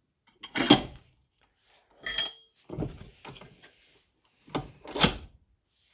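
Sharp metallic clanks and knocks at a steel bench vise as an aluminium strip is clamped and squeezed into a hinge hook: about five separate strikes, one about two seconds in ringing briefly.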